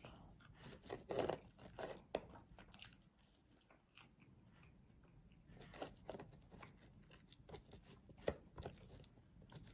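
Close-miked chewing and biting of food: faint, irregular soft crunches and wet mouth clicks, thinning out for a couple of seconds in the middle.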